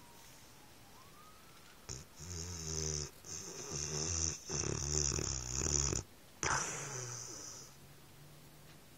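Pit bull snoring in its sleep. About four long, rattling snoring breaths begin about two seconds in and end a little before the close.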